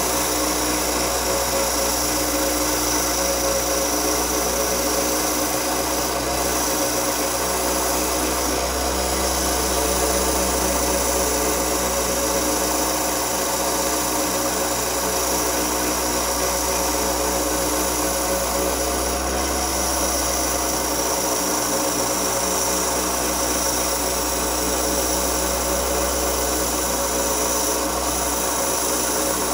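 Diamond Laser Speedster XL wet band saw running steadily, its diamond blade grinding through a thick cut-glass ashtray with water fed onto the cut.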